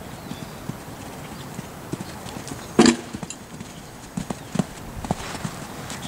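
Hoofbeats of a Trakehner gelding cantering on sand arena footing: irregular dull thuds, with one much louder thump a little before three seconds in.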